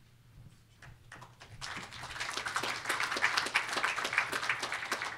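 Audience applauding: scattered clapping starts about a second and a half in and swells into steady applause.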